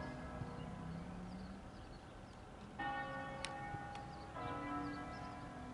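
Bells ringing: the ring of a strike just before fades away, then two fresh strikes about three and four and a half seconds in, each ringing on and slowly dying away.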